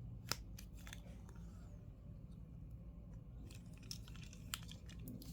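Light handling noises: scattered sharp clicks and taps of small plastic items being handled, with a louder click about a third of a second in.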